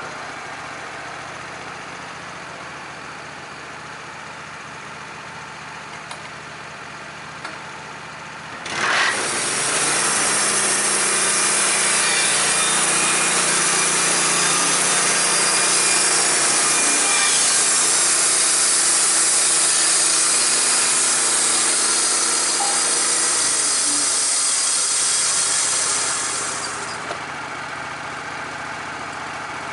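Engine-driven portable band sawmill: the engine idles, then about nine seconds in the blade goes into the log and cuts steadily and loudly for about eighteen seconds before running out of the cut, leaving the engine idling again.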